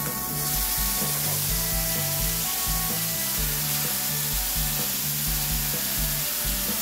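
Black-vinegar onion dressing sizzling as it hits a hot steel pan of shrimp, onion and shimeji mushrooms. A hiss starts suddenly just after the start, as the liquid flashes to steam, and holds steady. Background music with a repeating bass line plays underneath.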